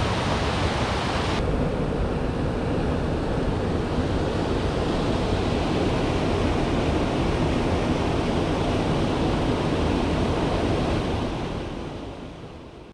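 Steady rush of water from rapids or a waterfall, fading out near the end.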